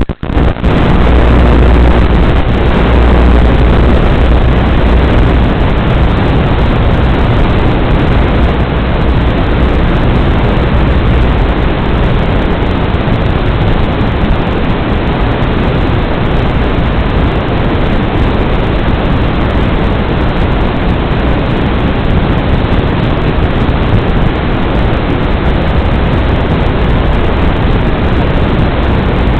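Loud, steady hiss of static with no engine or motor tone in it, as from the empty audio channel of an analog FPV video link. It drops out for a moment near the start.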